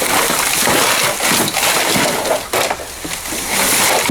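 A bag of small electronics and plastic junk being dumped out and handled, with a dense run of rustling and clattering and many small knocks.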